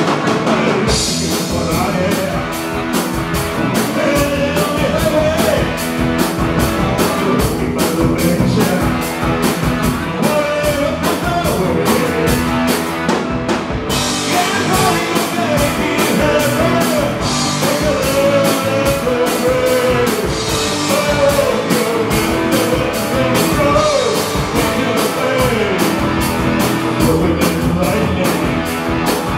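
Live rock band playing, with electric guitars, bass guitar, keyboard and a drum kit keeping a steady beat on the cymbals, under a male lead singer. The cymbals drop out briefly about halfway through.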